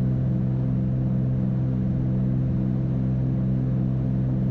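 Twin-engine Cessna 310's two piston engines and propellers droning steadily at climb power just after takeoff, heard inside the cabin, with a slight regular waver in the tone.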